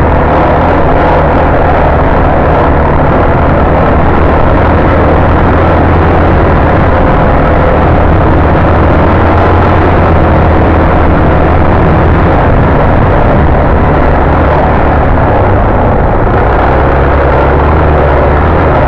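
Suzuki DR-Z400 single-cylinder four-stroke dirt bike engine running steadily while riding, with wind rushing over the microphone.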